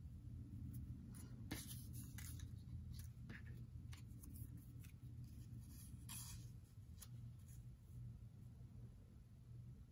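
Faint rustling and light scraping of paper as die-cut paper cut-outs are picked up and laid on a paper file folder, a few brief rustles spread through, over a steady low hum.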